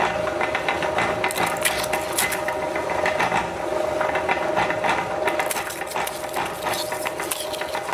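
Crisp, hollow fuska (pani puri) shells crackling and clicking as they are handled and dropped into the metal hopper of a meat grinder, with many sharp taps of shell on metal.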